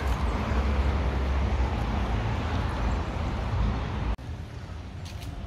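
A steady outdoor rumble with a hiss over it, with no clear single source; it drops abruptly to a quieter level about four seconds in.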